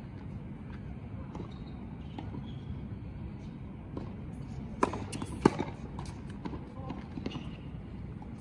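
Tennis balls being struck by rackets and bouncing on a hard court: two sharp pops less than a second apart about halfway through, the second the loudest, followed by a few fainter hits.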